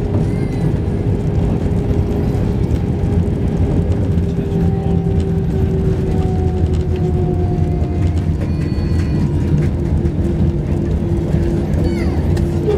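Cabin noise of an Airbus A320 rolling out on the runway after landing: a steady low rumble from the wheels and airframe, with an engine hum whose tone slowly falls in pitch.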